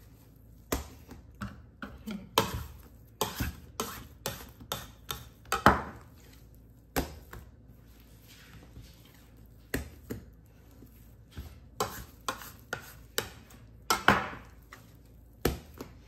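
Sticky, fruit-studded panettone dough being folded by hand on the worktop: a series of irregular slaps and knocks, in clusters, as the dough is worked against the counter.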